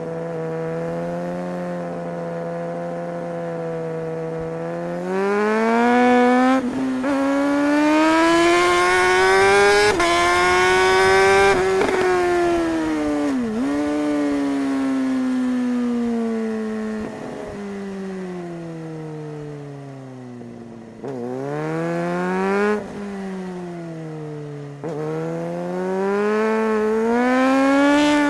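Suzuki GSR 600 inline-four motorcycle engine under way. It holds a steady pitch at first, then revs up through the gears with brief dips at each shift, and the pitch falls away as the bike slows. Near the end it picks up again in short bursts of acceleration.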